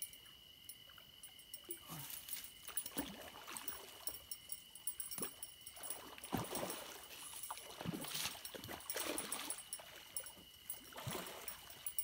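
Irregular splashing and swishing in the water, about seven times, as a hooked flathead catfish is fought at the river bank. A steady high insect drone runs underneath.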